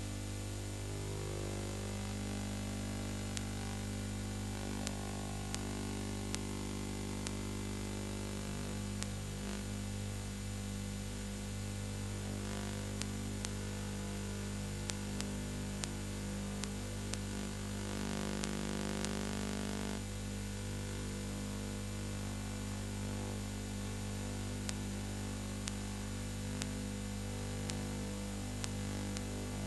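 Steady electrical hum with a layer of hiss, broken by sharp clicks here and there: background noise on the track of a silent film transfer, with no sound from the pictured scene.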